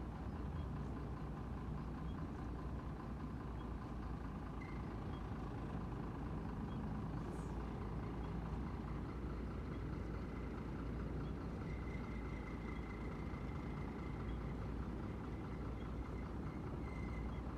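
Heavy tanker truck's diesel engine running steadily at low speed as the truck crawls through deep mud and water on a broken road.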